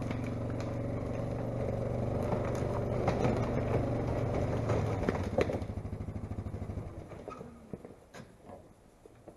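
A motor vehicle's engine running at a steady hum, then pulsing and fading away from about six seconds in, with scattered clicks and rustles over it.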